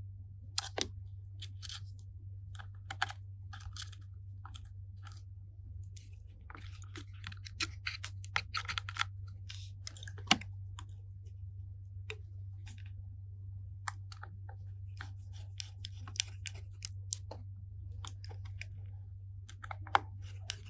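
Small scattered clicks, taps and scrapes of steel tweezers and fingertips on a smartphone's metal connector brackets and flex-cable connectors as they are pressed into place, with a steady low hum underneath. A sharper click comes about ten seconds in, and near the end a precision screwdriver works on a bracket screw.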